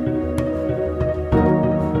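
Soft new-age background music: sustained instrumental chords over a gently pulsing low bass, with a change of chord about a second and a half in.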